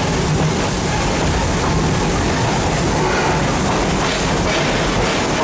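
Steady running noise of a theme-park excursion train, heard from inside one of its open-sided passenger cars as it rolls along the track.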